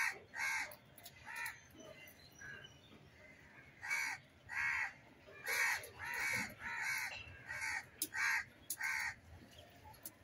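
Crows cawing: about a dozen short caws, some in quick pairs, with a lull of a second or so after the first few.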